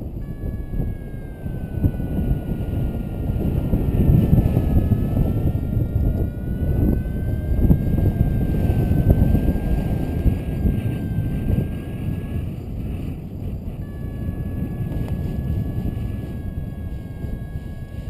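Wind rushing over the microphone of a camera on a paraglider in flight, swelling from about four to ten seconds in. Over it runs a thin whistling tone that wavers slightly in pitch and drops out briefly about two-thirds of the way through.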